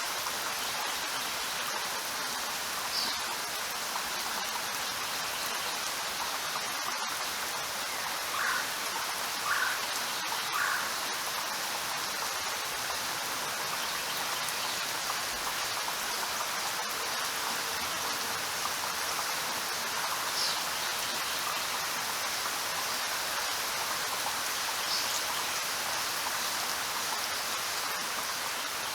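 Steady rain falling, an even hiss of drops without a break. A few faint short high chirps stand out now and then, three of them close together about a third of the way in.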